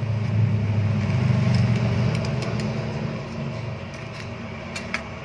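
Small river pebbles clicking against each other as a stem is pushed and stirred among them in a plant pot, a few sharp clicks around two seconds in and again near the end. A low steady drone underneath, which fades about three seconds in.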